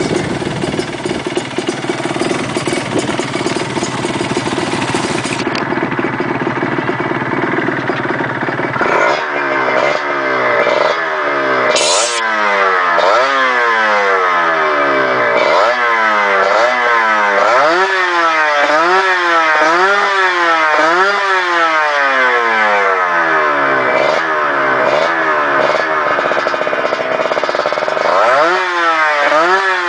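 Kawasaki Ninja RR motorcycle engine running through a custom aftermarket silencer. It runs steadily and roughly at first, then from about nine seconds in the throttle is blipped over and over, the pitch rising and falling about once a second.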